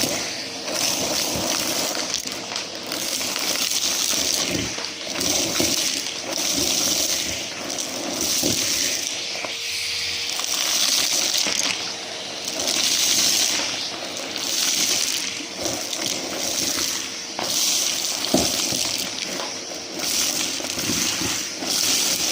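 Numatic James vacuum cleaner running close to the microphone: a steady motor hum under rushing airflow that swells and fades about every two seconds, with scattered clicks and crackles of debris being sucked up.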